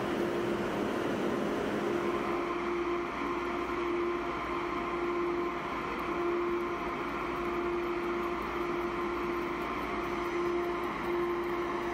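Deutsche Bahn ICE-T electric tilting train pulling slowly into the platform. It gives a steady electric hum with a level whining tone over a low rumble.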